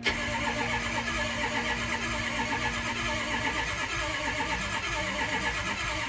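Ford 6.0L Power Stroke V8 diesel cranking over on its starter with an even, pulsing rhythm but never firing. This is a crank-no-start, with no injection control pressure building even with the ICP sensor unplugged.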